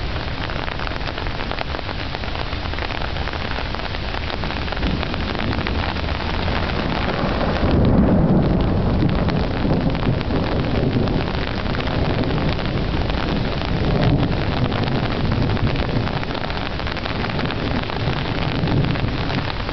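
Steady hiss of rain falling on grass and leaves in a hailstorm. A low rumble swells about eight seconds in and again around fourteen seconds.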